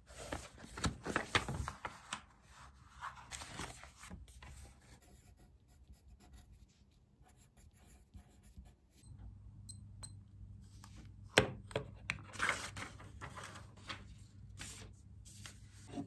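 Paper rustling and rubbing as a printed exam booklet is handled and smoothed flat. From about halfway through, a pen scratches across paper in short strokes, writing on the answer sheet.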